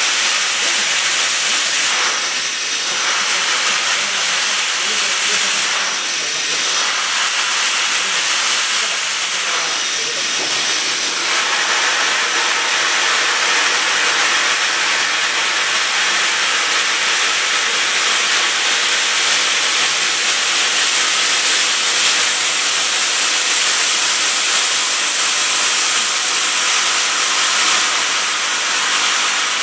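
Machining centre spindle driving a NACHI starting drill into a metal block, a loud steady hiss throughout. In the first ten seconds or so it swells briefly about every four seconds as each centre hole is spot-drilled; it then runs evenly as the drill chamfers a corner.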